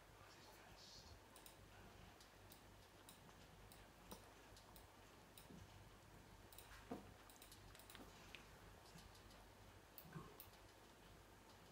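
Faint, scattered clicks and taps as a white cockatoo works a wooden ring in its stainless steel water bowl: beak and wood knocking against the metal, a few slightly louder knocks about four, seven and ten seconds in, over near-silent room tone.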